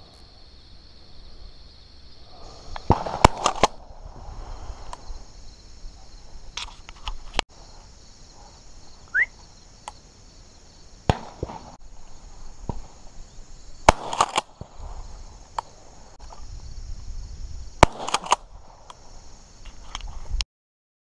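Shotgun shots at flying doves: a quick string of shots about three seconds in, single and paired shots after that, and another quick string near the end.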